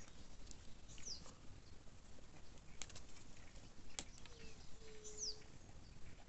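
Birds calling faintly: a short, high, falling whistle about a second in and again about five seconds in, with a low held note for about a second just before the second whistle. A few sharp clicks fall in between.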